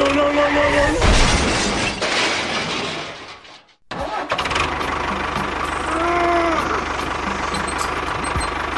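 Dense clattering noise with a short two-note tone near the start, then a sudden cut. After the cut, a motor runs steadily with a fast, even low beat, and a brief rising-and-falling tone sounds about six seconds in.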